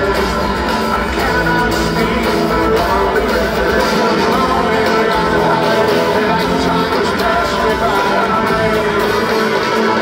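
Live rock band playing: strummed acoustic guitar, electric bass and drum kit, heard through a phone recording made in the audience.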